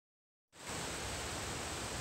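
Silence, then about half a second in a steady rushing hiss of a rocky mountain creek flowing fast cuts in.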